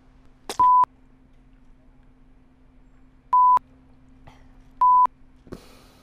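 Three short bleeps of one steady pitch, each about a quarter second long: one about half a second in, then after a gap of nearly three seconds two more a second and a half apart. Between them is only a faint steady hum.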